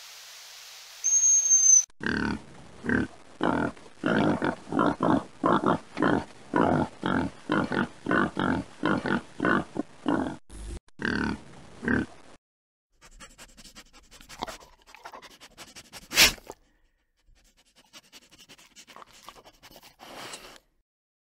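A herd of pigs grunting, a steady run of short grunts about two a second for some ten seconds. Before them a brief high whistle over a hiss; after them faint rustling and one sharp click.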